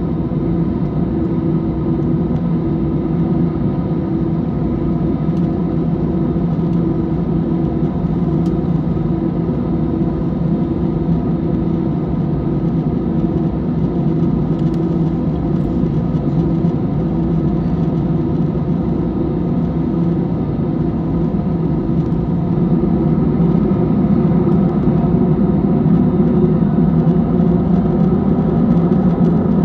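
Airliner engines running with a steady drone and hum, growing somewhat louder about three-quarters of the way through.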